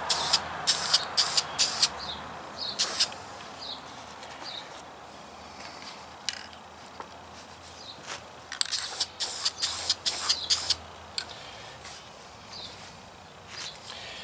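Aerosol spray-paint can giving short spurts of spray, each a quick hiss, through a cardboard stencil. One run of spurts comes in the first three seconds and another comes around nine to eleven seconds in.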